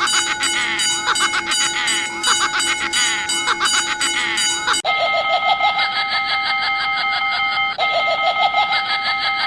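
Railroad crossing warning bells, electronic and repeating, in cartoon sound effects. About five seconds in the sound cuts to a different repeating crossing-bell pattern.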